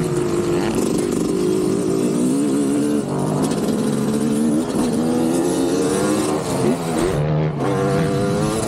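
Motocross dirt bike engine running hard, revving up and down, its pitch rising and dropping several times.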